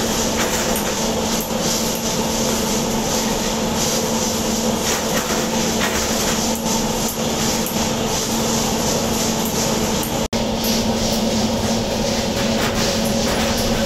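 Machinery running steadily, a constant hum over a rushing noise with faint light clicks. It cuts out for an instant about ten seconds in.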